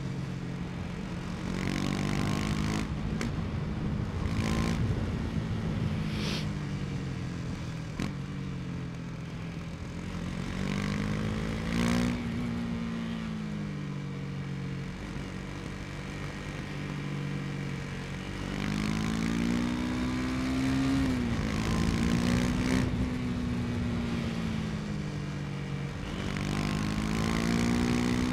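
KTM 250 Duke's single-cylinder four-stroke engine under way. Its revs climb and drop back several times as the bike accelerates and rolls off.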